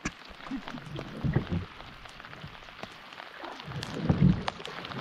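Light rain pattering in many small drops, with a few low thuds, the loudest about four seconds in.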